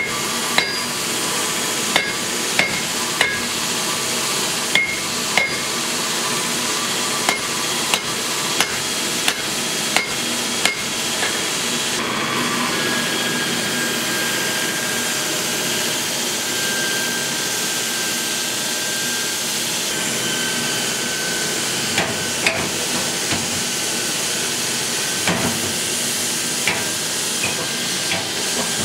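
Hand hammer striking red-hot leaf-spring steel on an anvil, sharp ringing blows at an uneven pace of roughly one a second, over a steady hiss. The blows stop for about ten seconds midway, then a few more come near the end.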